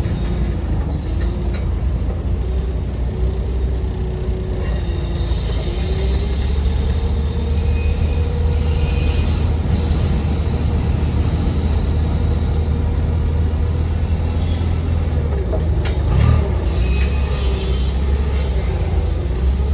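A motor running steadily: a low hum under a whine that wavers and rises in pitch about six seconds in, with a single thump near the end.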